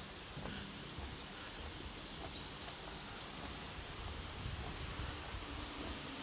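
Steady outdoor background noise with a faint high insect hum and an uneven low rumble.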